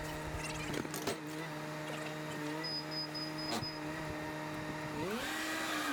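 A small engine running at a steady speed, its pitch rising about five seconds in as it revs up. There are a couple of short knocks, and a faint, rapid high beeping sounds near the middle.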